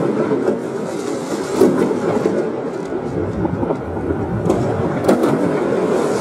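Fireworks bursting and crackling, slowed to half speed: a dense, continuous crackle with a few sharper bangs standing out, about one and a half seconds in and twice more around the five-second mark.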